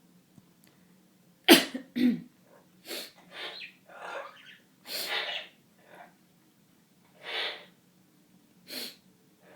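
A run of about nine short sniffles and sneeze-like snorts, spaced irregularly, the loudest and sharpest about one and a half seconds in. They are an Amazon parrot imitating a person with a cold, together with its owner making the same noises to prompt it.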